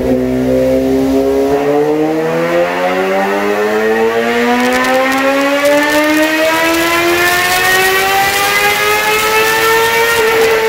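Suzuki GSX-R 750's inline-four engine, breathing through an M4 shorty slip-on and a cat-delete pipe, pulling under load on a chassis dyno. The engine speed rises smoothly and steadily for about ten seconds, then levels off near the end.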